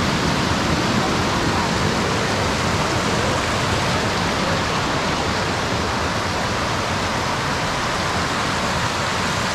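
Waterfall: a steady, loud rush of falling water with no let-up.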